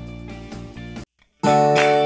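Background music: a plucked guitar piece that stops about a second in, a brief silence, then a louder music track starting.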